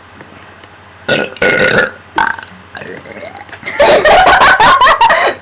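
A person burping several times: two short burps a little over a second in, a small one near two seconds, then a long drawn-out burp over the last second and a half.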